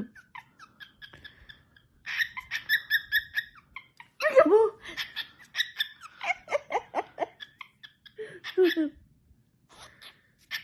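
A cockatiel's quick runs of repeated high chirps, mixed with laughter-like sounds.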